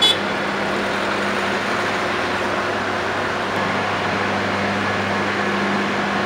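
Steady engine drone over street traffic noise, with a short high beep right at the start.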